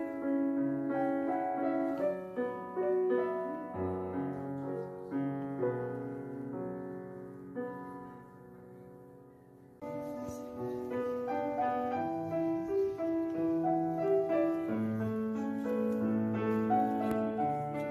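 Background piano music. It fades down over a few seconds, then starts again abruptly about ten seconds in.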